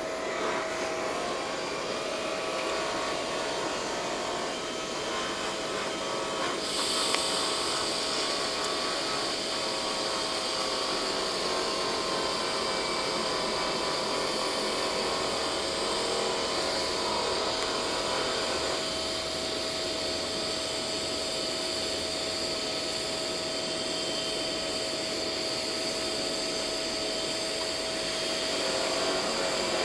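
Steady whirring machine noise with a constant hum, joined about seven seconds in by a brighter, higher hiss that carries on.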